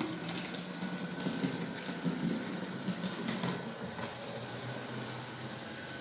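Märklin 37806 model locomotive's electric motor running with its digital sound switched off, after a service: a steady whirring hum with a faint high whine and a few light ticks.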